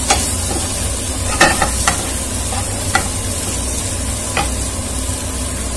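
Wooden spatula stirring spiced boiled potato cubes frying in oil in a non-stick pan, with a steady sizzle. A handful of short sharp knocks and scrapes come from the spatula against the pan, the loudest about a second and a half in.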